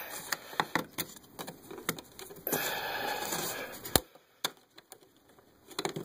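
Clicks and knocks of the new cover being worked into place over a casement window's crank operator, with a scraping slide about two and a half seconds in that ends in a sharp knock about four seconds in.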